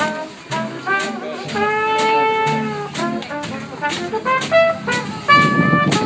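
Small jazz band playing, with a trumpet taking the melody over upright bass and drums. The trumpet holds one long note about two seconds in.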